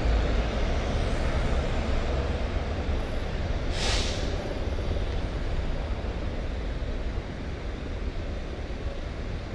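Road traffic with low wind rumble on a moving camera's microphone, and a short sharp hiss about four seconds in.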